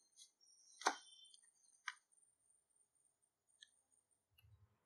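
Wooden rolling pin on a steel rolling board, with a sharp knock about a second in and a lighter knock a second later, then a small tap near the end.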